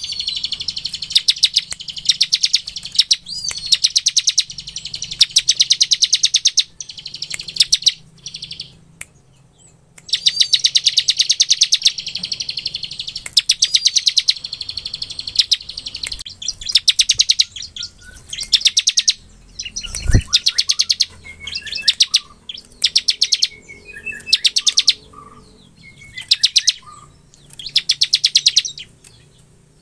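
Bar-winged prinia (ciblek) singing its rapid, rattling 'ngebren' trill in repeated high bursts of about half a second to a second, with short gaps between. Softer scattered chirps come between the bursts in the second half, and there is a single dull thump about twenty seconds in.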